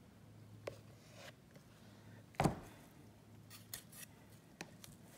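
Resin-coated wooden painting boards handled and pulled apart with a gloved hand: faint rubbing and light clicks, with one sharp knock about two and a half seconds in.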